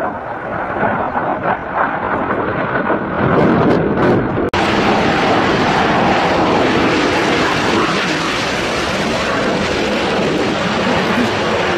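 JF-17 Thunder fighter jet's turbofan engine roaring as it flies past. About four and a half seconds in, the sound cuts abruptly from a dull, muffled rumble to a louder, brighter steady roar.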